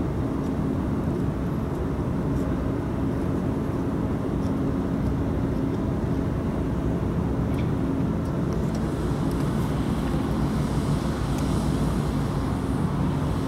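Steady low engine rumble with a constant low hum running through it.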